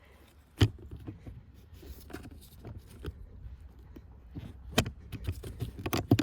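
Hard plastic parts clicking and knocking as the cabin pollen filter cover is handled and pushed into place. There is a sharp click about half a second in, a louder one near five seconds, and a quick run of clicks near the end.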